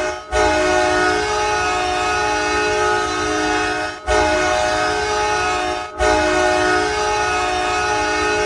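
Ice hockey arena goal horn sounding a loud, steady chord of several tones, in long blasts with brief breaks about four and six seconds in.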